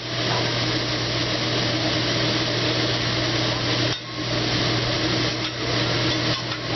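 Vegetables and chicken sizzling on a hibachi griddle, with a metal spatula scraping and clinking on the steel, over a steady low hum.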